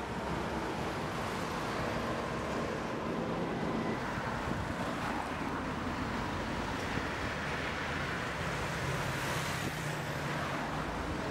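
Street traffic: cars driving past on a city road, a steady noise of tyres and engines.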